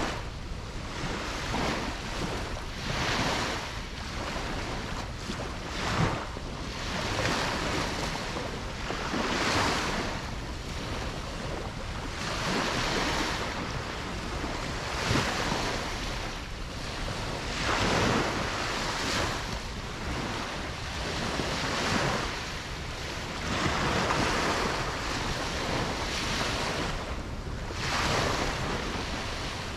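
Ocean waves breaking and washing on a beach in a continuous rushing surf, swelling and falling every few seconds, with wind buffeting the microphone.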